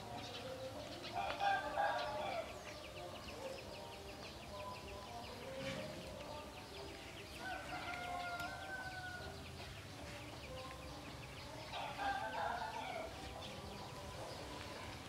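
Roosters crowing three times: about a second in, around the middle, and near the end, the first the loudest.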